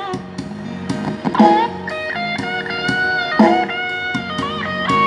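Instrumental break in a song: a lead electric guitar plays a melody with held and bent notes over a band keeping a steady beat, with no singing.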